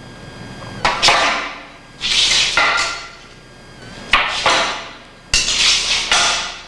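Butterfly swords clashing against a long staff during blocks: four sharp clacks, each with a short ringing tail.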